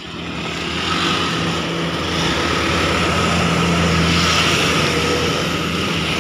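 Hero XPulse 200 4V's single-cylinder engine running at low revs in a low gear. It grows louder over about the first second as the bike comes up close, then holds steady.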